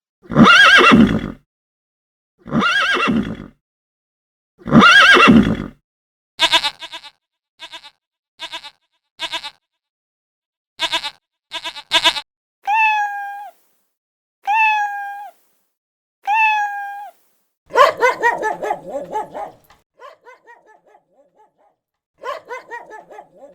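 A sequence of different animal calls, each kind repeated a few times: three loud calls, then a run of short sharp calls, then three matching higher-pitched calls, then more calls near the end.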